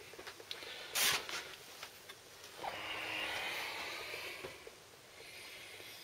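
Handling noise: a short sharp rustle about a second in, then a soft rubbing hiss for about two seconds as the camera and a motorcycle cylinder barrel are handled.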